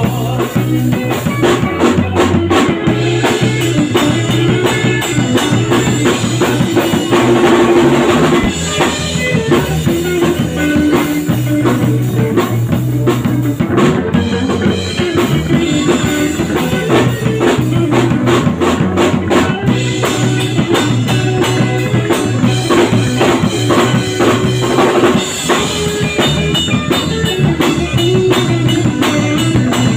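Live rock band playing: electric bass, drum kit and electric guitar, with a steady bass line and a driving beat.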